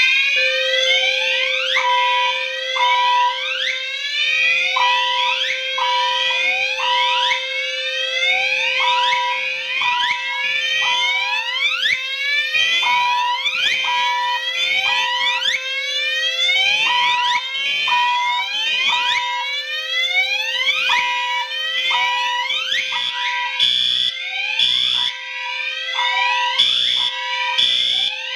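A bunch of fire alarms sounding together: many overlapping rising whoop sweeps repeat over and over, on top of a steady tone and short repeated beeps. About three-quarters of the way through, a pulsing alarm joins in at about one pulse a second.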